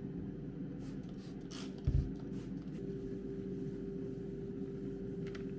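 Air fryer running with a steady hum, and one dull thump about two seconds in.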